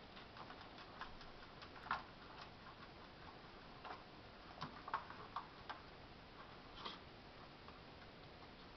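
Faint, irregular light clicks and scratches from kittens playing on a sisal-rope scratching post and wooden parquet floor, with a few louder taps about two, five and seven seconds in.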